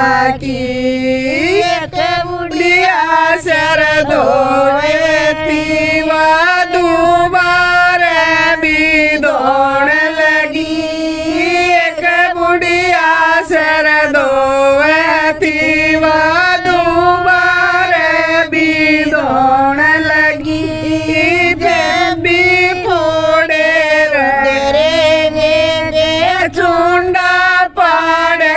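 Women singing a Haryanvi folk bhajan (jakdi) together, one voice leading, in a continuous melodic chant-like line.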